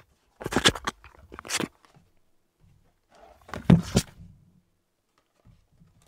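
Small cardboard retail box being opened by hand: a few short scrapes and taps of the paperboard lid and packaging, the loudest about three and a half seconds in.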